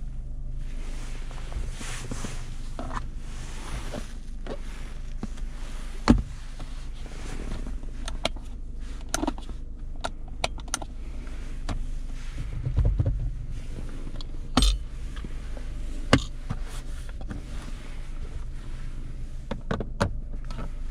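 Cabin sound of a 2007 Mitsubishi Lancer with the 1.6-litre 4G18 engine on the move: a steady low engine and road drone. Scattered sharp clicks and knocks from the cabin and suspension sound over the drone, the loudest about six seconds in and again around fifteen seconds.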